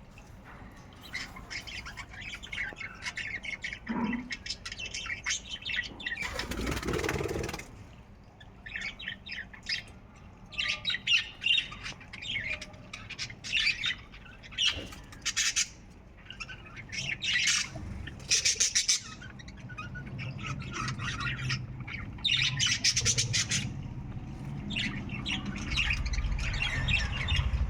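A flock of pet budgerigars chattering, with many quick high chirps and squawks coming in clusters.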